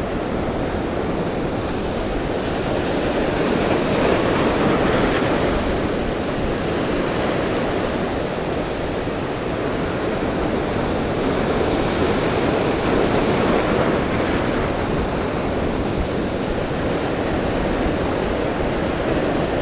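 Rough sea surf breaking and washing over shoreline rocks, a steady rush of water that swells a little about four seconds in and again a few seconds past the middle.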